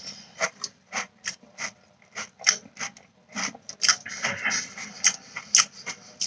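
A person chewing crunchy Cinnamon Toast Crunch cereal close to the microphone: a run of irregular crisp crunches, two or three a second.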